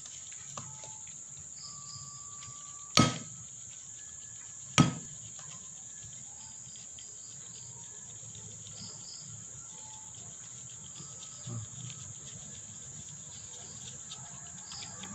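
A steady high-pitched insect trill, with two sharp knocks about three and five seconds in as a plastic flour sieve is shaken over a plate.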